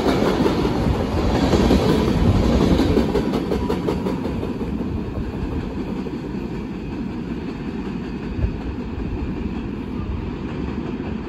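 Freight train cars rolling past and away, steel wheels clacking over the rail joints. The rumble fades steadily as the tail end of the train recedes, with one sharper click late on.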